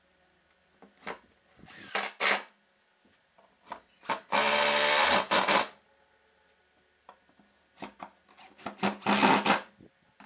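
Wood being worked with a tool in short rasping strokes: a few quick strokes, the loudest and longest lasting just over a second about four seconds in, then another cluster near the end.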